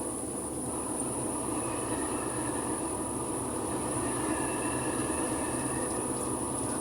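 Steady engine and road rumble of a vehicle being driven, with a constant thin high-pitched tone over it.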